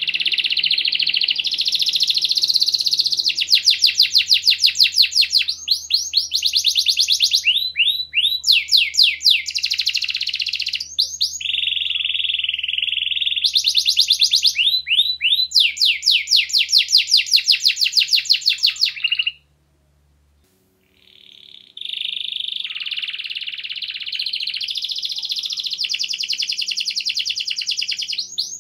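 Domestic canary singing a long, continuous song of fast trills and rolling phrases. The song breaks off for about two seconds past the middle, then starts again.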